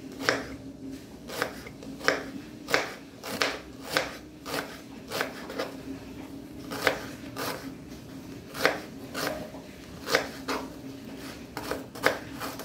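Kitchen knife slicing a red onion on a plastic cutting board: a crisp tap of the blade on the board at each cut, about one to two a second, slightly uneven.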